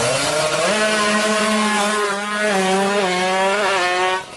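Two-stroke single-cylinder engine of a Kawasaki Ninja R drag bike held at high revs. The pitch climbs in the first second, holds with slight wavers, then drops away sharply near the end.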